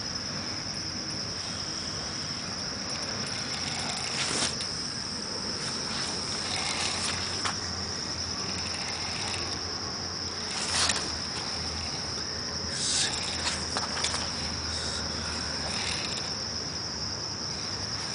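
Steady, high-pitched chorus of crickets trilling without pause, with a few brief rustling noises about four seconds in, near the middle and a little after.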